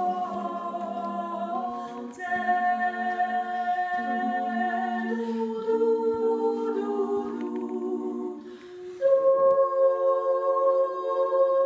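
Small women's choir singing a cappella in close harmony, holding long chords that change every second or two. A short break comes about eight and a half seconds in, then a louder chord.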